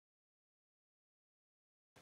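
Silence: the sound track is blank, with only a faint hiss coming in right at the end.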